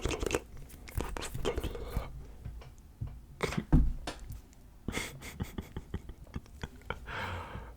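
Close-mic ASMR mouth sounds: a quick string of wet clicks and smacks mixed with breathy whispered noises, with one louder thump nearly four seconds in.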